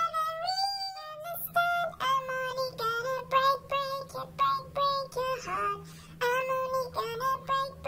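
A cartoon fly's high-pitched singing voice, in short notes in quick succession over a faint steady low backing tone.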